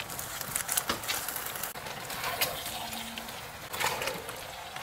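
Diced pork fat and pork skin rendering in a wok, sizzling with scattered crackles and pops as the fat begins to give off oil.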